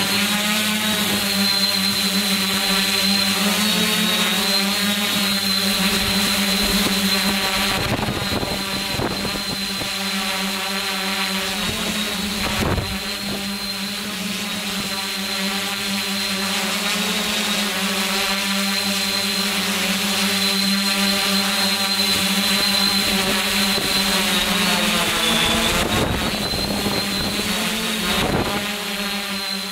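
Multirotor drone's electric motors and propellers running: a loud, steady hum with a high whine, its pitch wavering a little as the motor speeds change and dipping briefly near the end.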